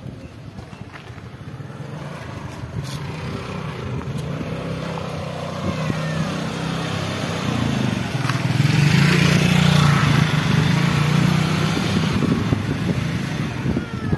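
A motor vehicle engine running steadily, growing louder to a peak about two-thirds of the way through, then easing off.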